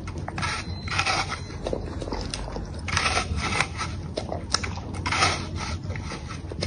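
Golden retriever puppy gnawing at a whole apple, its teeth clicking and scraping on the skin, with louder crunchy bursts about a second, three seconds and five seconds in.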